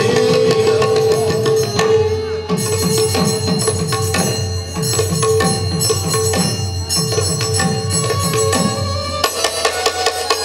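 Manipuri pung, a two-headed barrel drum, played with both hands in rapid strokes, its deep strokes sliding down in pitch, over a held melodic note from the accompaniment; near the end the strokes turn sharper and more clipped.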